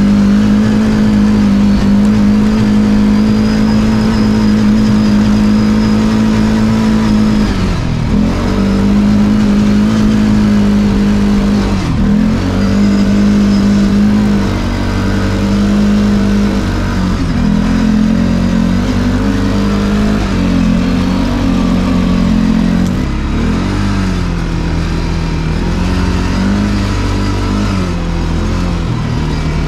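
CFMoto CForce 450L ATV's single-cylinder engine running under way at a steady speed, its pitch dipping sharply twice, about eight and twelve seconds in, then wavering up and down as the throttle changes.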